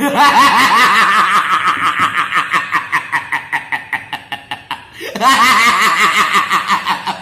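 A person laughing hard in long, rapid strings of short 'ha' pulses, about five a second; one bout fades, and a second begins about five seconds in.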